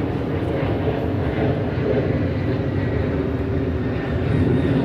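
Steady low engine rumble with a hum, running evenly throughout.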